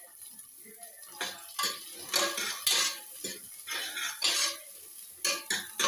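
Metal ladle scraping and clinking against the inside of a pressure cooker, stirring onions, mint and dried red chillies frying in oil. Irregular sharp clinks and scrapes, starting about a second in.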